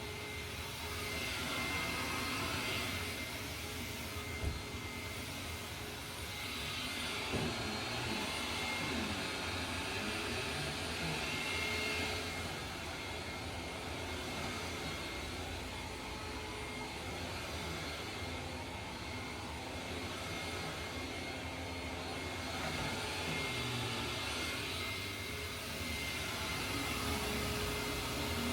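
Hoover WindTunnel Supreme upright vacuum cleaner running steadily, a continuous motor drone with a thin high whine, its loudness swelling and easing a little as it is worked. Two brief knocks sound about four and seven seconds in.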